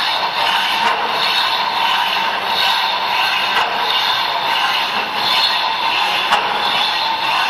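Pedal-driven hacksaw sawing metal: the blade scrapes back and forth in strokes about once a second, with light clicks and clatter from the linkage.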